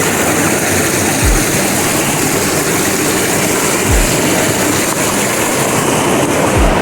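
Loud, steady rush of falling mountain water. Three brief low thumps come about two and a half seconds apart.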